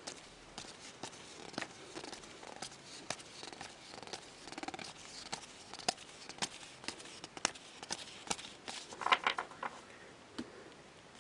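A handful of hockey trading cards being flipped through by hand: cards sliding off one another with a run of light clicks and snaps, and a louder brief flurry about nine seconds in.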